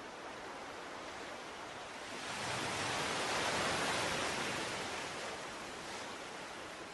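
Skateboard wheels rolling on court asphalt, a rising and falling rumbling hiss as the board approaches and passes close by.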